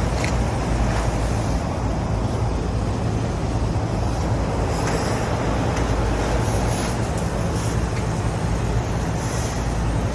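Lennox rooftop package HVAC unit running steadily: an even rush of fan air over a low electrical hum, with a few faint clicks.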